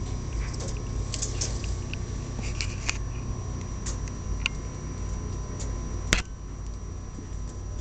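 Pet rats' claws scrabbling and ticking on a wire cage and its floor: scattered light scratches and clicks, with one sharp knock about six seconds in, over a steady low hum.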